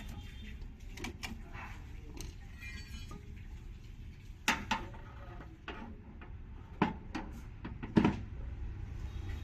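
Scattered metal clinks and knocks of tools and parts being handled during washing-machine drum repair, with a few louder knocks in the second half, over a steady low hum.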